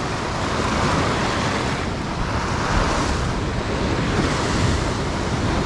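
Ocean surf washing against a rock shelf: a steady rush of white water, with wind buffeting the microphone.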